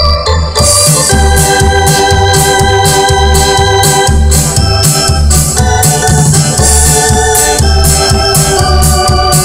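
Live band playing loud dance music: a keyboard sustaining organ-like chords over a steady bass beat and bright percussion, the full band coming in about half a second in.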